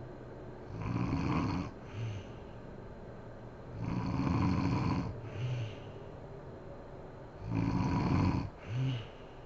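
A woman snoring in her sleep: three loud snores about three and a half seconds apart, each followed by a shorter, fainter one.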